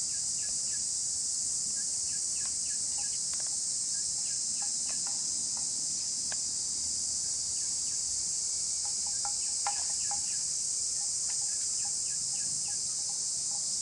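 Dense, steady high-pitched chorus of insects, with faint scattered clicks and short knocks, a small cluster of them about ten seconds in.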